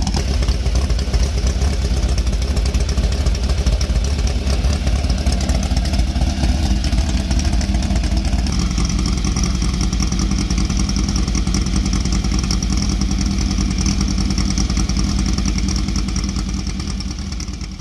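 Classic VW Beetle's air-cooled flat-four engine, set up for a fierce sound, idling steadily; its note shifts slightly about eight seconds in, and it fades out near the end.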